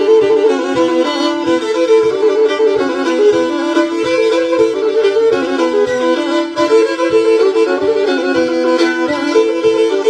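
Background music: a Black Sea kemençe, a small bowed fiddle, playing a horon tune in quickly changing notes over a steady low beat.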